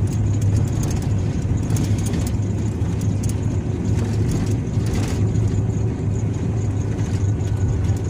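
Vehicle driving on a forest road, heard from inside the cab: a steady low engine and road hum, with two brief knocks about two and five seconds in.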